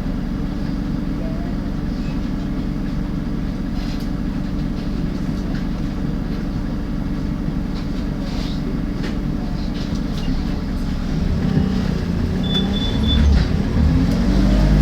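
Alexander Dennis Enviro 300 MAN bus running with a steady low engine drone and a few sharp clicks, the clicking noise the bus is known for. Near the end the engine picks up and rises in pitch as the bus pulls away, with a brief high beep just before.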